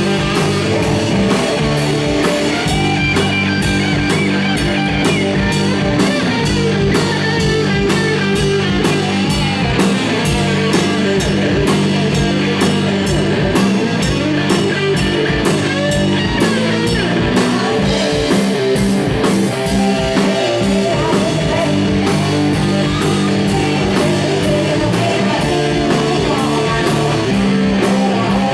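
A live rock band playing electric guitar over a steady drum-kit beat.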